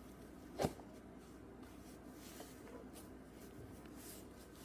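Faint scraping and rustling of a cardboard package being picked at with a small hand tool, with one sharp click a little over half a second in.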